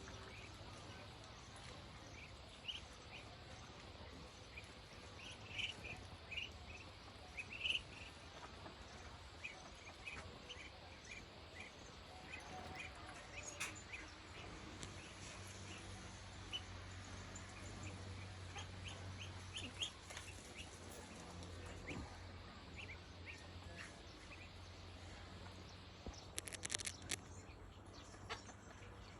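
Free-range chickens making short, high chirps scattered throughout, over a faint low hum, with a few sharp clicks near the end.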